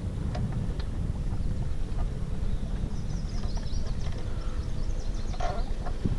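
Wind buffeting the microphone, with a bird calling in a quick series of short high notes from about halfway through.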